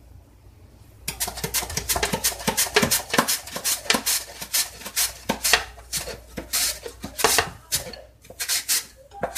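A carrot pushed back and forth over the blade of a hand-held plastic julienne slicer, cutting it into thin strips that drop into a bowl: a fast, uneven run of strokes, about three or four a second, starting about a second in.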